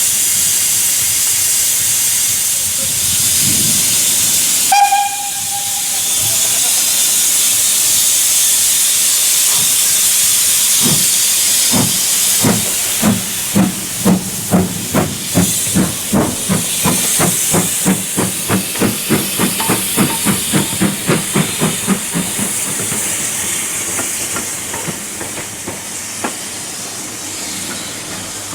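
Steam locomotive: a steady hiss of steam, a short whistle blast about five seconds in, then exhaust beats that start slowly and quicken as it pulls away.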